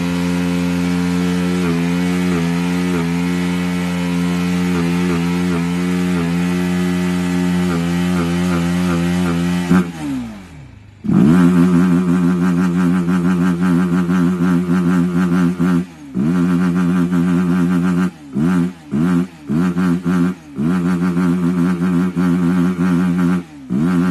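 Motorcycle engine running at a steady note, its revs falling away about ten seconds in before it comes back loud. In the second half the engine note cuts in and out again and again in short bursts of throttle.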